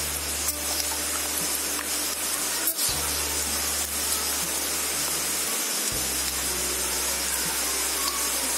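Small fish deep-frying in plenty of hot oil in a wok, a steady sizzle, under background music whose low bass note changes about every three seconds.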